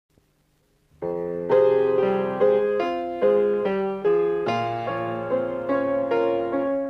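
Instrumental introduction of a 1970s Cantonese pop song, played on keyboard: chords and melody notes that each strike and then fade. It starts about a second in.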